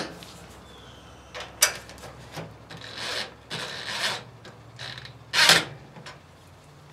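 A handful of short scraping and rubbing strokes at uneven intervals, over a faint steady low hum.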